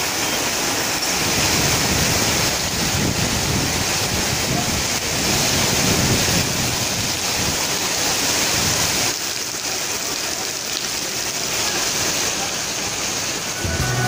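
Very heavy rain falling on a paved street: a loud, steady hiss of a downpour, easing slightly about nine seconds in.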